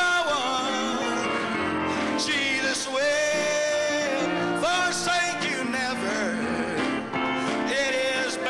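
Elderly man singing a gospel song into a handheld microphone, with piano accompaniment.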